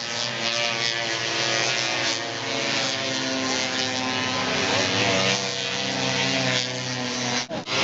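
Several single-cylinder two-stroke racing snowmobile engines running at steady high revs together, with a brief break in the sound near the end.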